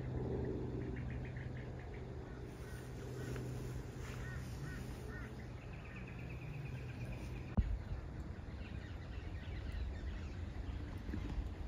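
Birds calling in the valley: short chirps, then a run of curving whistled notes and a rapid trill partway through, over a low outdoor rumble. A single sharp tick comes about two thirds of the way in.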